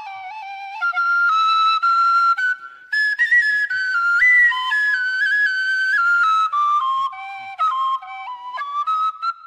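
Solo bamboo flute playing a melody in Khmer classical style, one line of held and ornamented notes that climbs to its highest pitch about four seconds in and then steps back down, with a short breath pause just before three seconds.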